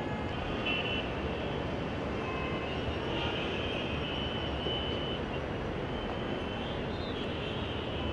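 Steady city traffic noise with a few short, high horn toots over it.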